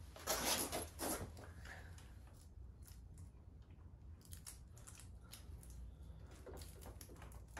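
Gloved hands fitting a split link into a motorcycle drive chain: a few short rustling bursts in the first second or so, then faint scattered metal clicks.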